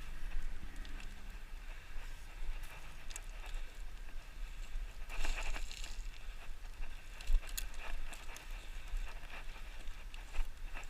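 Loose gravel and rock shifting under a hiker's feet and hands on a steep slope: scattered clicks, a short gritty scrape about five seconds in and a sharp knock a couple of seconds later, over a low rumble of wind or handling on the microphone.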